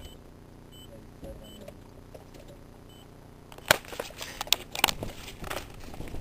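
Fairly quiet at first, then from about halfway a cluster of sharp knocks and clicks with rustling: a handheld camera being handled and moved.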